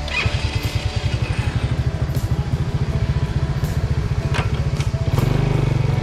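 Motorcycle engine running under way, its rapid low firing pulses close and loud, getting louder about five seconds in.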